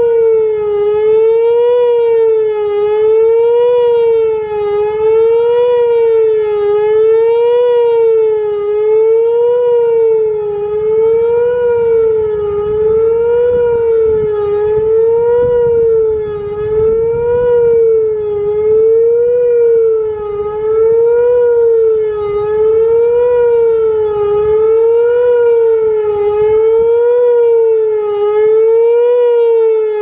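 Whelen Vortex-4 rotating electronic siren sounding the attack signal: one steady wavering tone whose pitch rises and falls evenly about every one and a half seconds. The level dips every so often as the rotating horn turns away.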